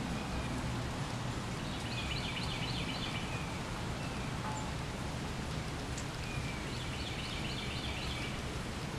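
Steady hiss of wind and falling wet snow in the trees, with a low rumble of wind on the microphone. A songbird sings two short chattering phrases of quick repeated notes, about two seconds in and again about six and a half seconds in.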